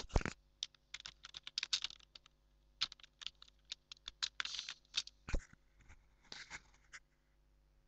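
Typing on a computer keyboard: irregular key clicks, some in quick runs, stopping about a second before the end.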